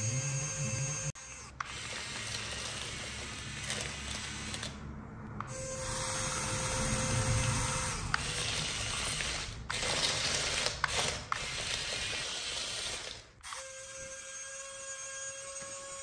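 Steady mechanical whirring with a ratcheting of small gears, broken into several segments by abrupt cuts.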